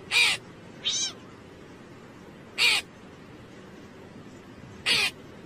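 A cat and a small black crow-like bird calling at each other: four short, loud, meow-like calls, spaced about one to two seconds apart.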